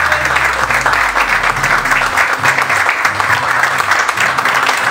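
A small group of people clapping by hand, steady applause throughout.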